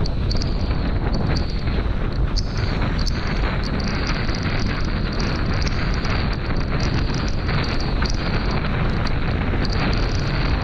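Strong wind buffeting a rig-mounted GoPro's microphone as a windsurf board planes fast in about 20 knots of wind, over water rushing under the hull, with many small sharp ticks scattered throughout.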